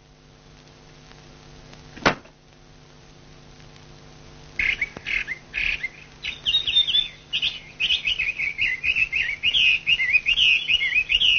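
Small birds chirping, a quick run of high twittering calls that begins about halfway through and keeps going. Before it there is a faint steady hum and a single sharp knock about two seconds in.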